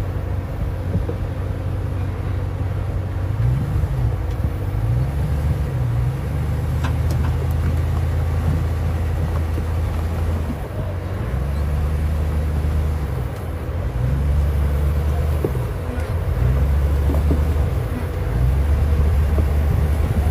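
Car engine working hard in low gear, its note rising and dropping again every couple of seconds as the throttle is opened and eased.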